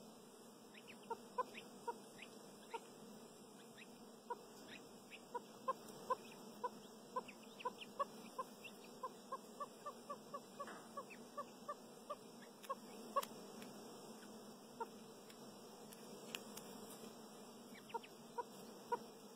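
Chukar partridge hen giving short, soft clucks over and over, about two or three a second and quickest midway, with brief higher peeps from her downy chicks.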